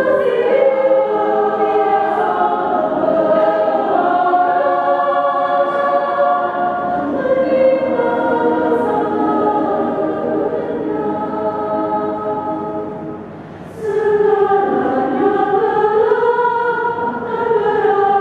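Women's choir singing sustained chords in several-part harmony. The singing softens briefly about two-thirds of the way through, then comes back in full.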